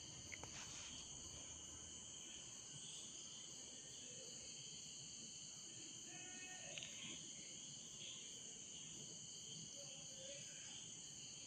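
Near silence: room tone with a faint steady high-pitched hiss and a small click shortly after the start.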